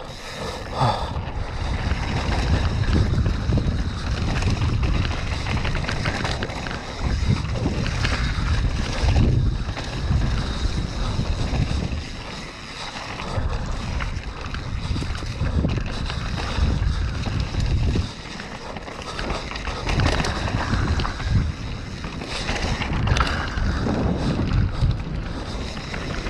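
Wind buffeting the camera microphone over the rumble of a downhill mountain bike's tyres rolling fast on a dirt trail, with scattered knocks and rattles as the bike hits bumps.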